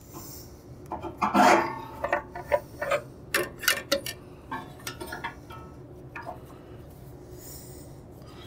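Short metal clicks, taps and a scrape as a bandsaw's upper blade guide block and guide post are handled and adjusted by hand. The clicks come thick and fast through the first half, with the loudest scrape about a second and a half in, then thin out and stop after about six seconds.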